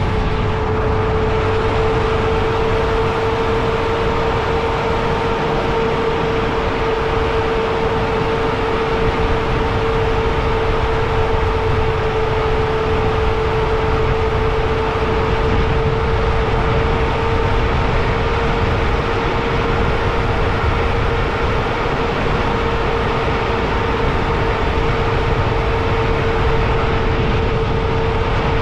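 A vehicle driving steadily along a road, heard from on board: a constant droning tone from the running engine over a rumble of road and wind noise.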